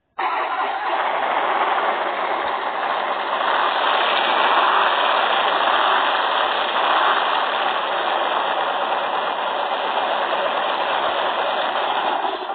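Harley-Davidson Dyna Low Rider S V-twin engine running steadily, swelling slightly about four seconds in, played back as a thin recorded sample from a motorcycle-sounds app. It starts and stops abruptly.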